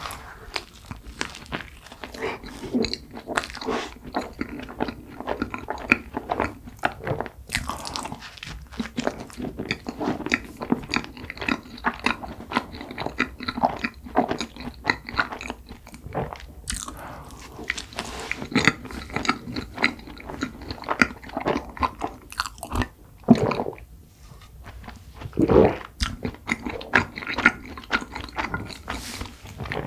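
Close-miked eating of cream-filled red bean buns: a dense run of short bites, chews and wet mouth sounds.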